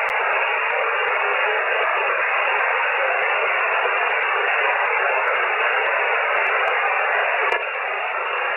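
Steady hiss of a shortwave receiver tuned to single-sideband, with band noise filling its narrow voice passband and no signal coming through. The noise dips slightly about seven and a half seconds in.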